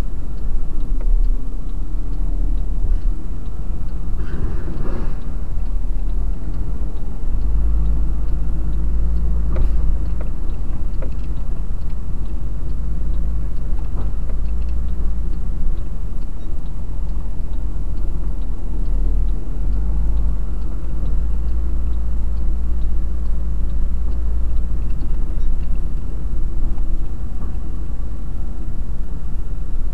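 Truck engine running at low speed, heard from inside the cab, a steady low rumble with a few faint knocks as it rolls along a dirt road.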